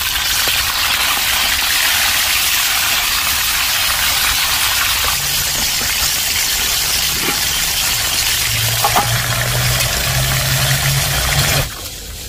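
Barracuda steaks frying in hot oil in a steel wok, a loud, steady sizzle that cuts off suddenly near the end.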